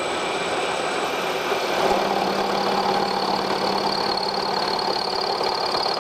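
Milling machine running and cutting metal steadily, surfacing one side of a workpiece.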